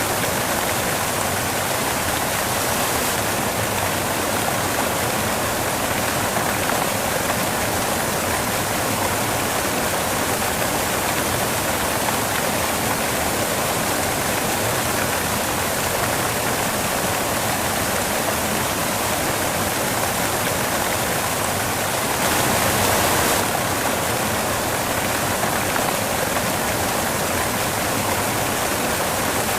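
Steady, even hiss of white noise, swelling slightly for a second or so about 22 seconds in.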